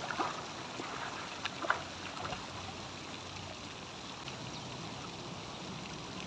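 Swimming-pool water sloshing and splashing as a person swims through it, with a couple of small splashes about a second and a half in, then a steady wash of moving water.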